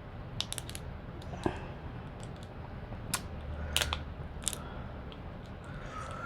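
Boiled seafood shells being cracked and picked apart by hand: scattered sharp cracks and clicks, the loudest near the middle.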